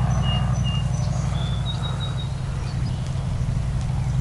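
A bird calling a series of short, high whistled notes over a steady low rumble.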